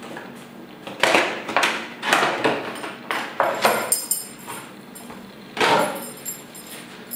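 Stiff plastic blister packaging on a card backing being handled and pulled open: a series of short, irregular crackles and clacks, with quieter rustling between them.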